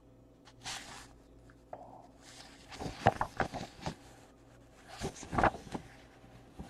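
A sheet of printer paper rustling as it is held and moved by hand, in several short bursts.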